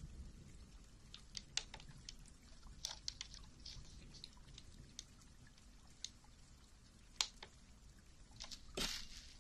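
Close-miked ASMR trigger sounds: scattered soft clicks and ticks from an object being handled, with a brief louder crackle near the end.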